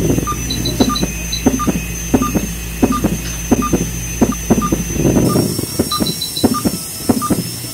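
Veterinary dental equipment running during a dog's teeth cleaning: a steady low hum and a thin high whine, with short regular beeps about every two-thirds of a second and scattered clicks. The hum cuts out about five seconds in.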